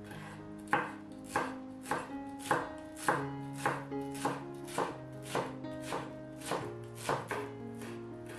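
Kitchen knife chopping fresh parsley on a wooden cutting board, a steady run of about fourteen even strokes, a little under two a second. Soft background music plays underneath.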